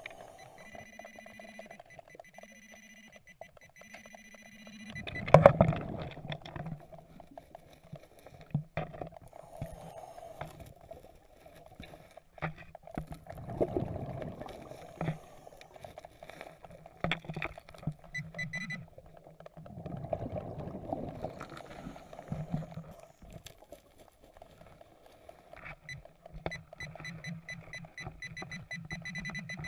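Underwater metal-detector pinpointer beeping: a steady tone pulsing on and off at first, then rapid pulsing near the end. Between the beeps come regular loud swells of a diver's exhaled bubbles every several seconds, and sharp clicks and knocks of the probe and hands on river rocks.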